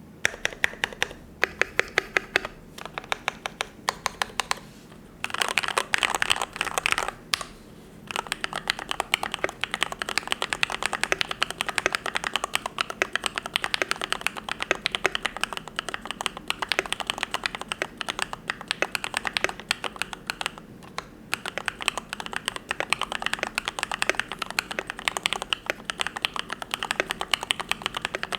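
Typing on a YMD75 V3 custom mechanical keyboard fitted with lubed Gateron Yellow linear switches: a fast, steady stream of keystrokes, with a flurry of very rapid presses about five seconds in and a couple of brief pauses.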